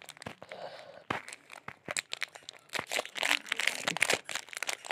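Plastic chocolate-bar wrapper being crinkled and torn open by hand. The crackling is busiest about three seconds in.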